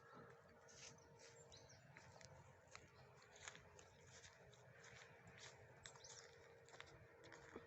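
Faint outdoor ambience with scattered short, high bird chirps over a low background hum.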